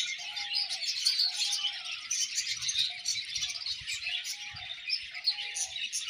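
A colony of budgerigars chattering and warbling continuously, many birds at once, with a lower, steady note repeating about once a second underneath.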